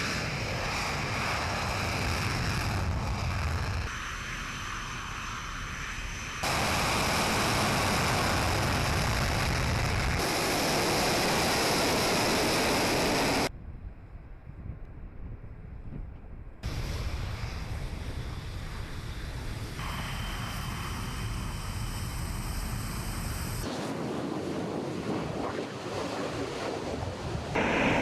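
Steady rushing noise of bomber aircraft in flight, cut into a series of segments that change abruptly in loudness and tone every few seconds.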